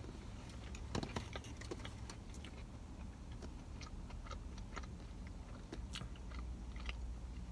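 People chewing a sandwich with their mouths: soft, scattered wet clicks and smacks, a few a second, over a low steady hum.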